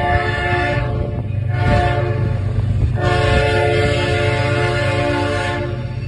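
CSX diesel locomotive's air horn blowing: a long blast ends about a second in, a short toot follows, then another long blast from about halfway that stops just before the end, the pattern of a locomotive sounding for a grade crossing. The locomotive's diesel engine rumbles underneath.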